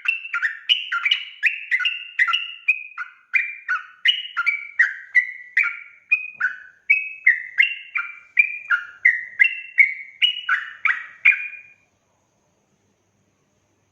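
Yellow-vented bulbul (trucukan) singing a rapid, unbroken run of short warbling notes, about three a second, which stops near the end.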